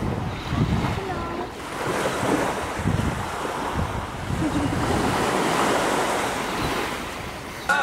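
Wind buffeting the microphone over the wash of small waves on a sandy beach, with uneven gusts.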